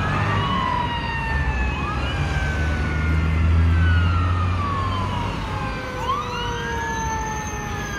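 Fire engine siren wailing in long, slow rising and falling sweeps, with a few quicker upward sweeps about six seconds in. Beneath it, passing car engines run with a low rumble that swells about four seconds in.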